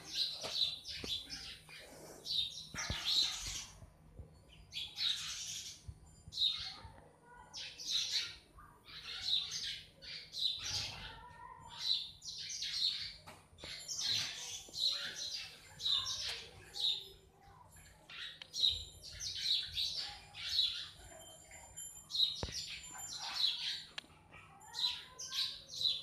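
House sparrows chirping: short, sharp chirps that come in quick clusters about every second, without a break.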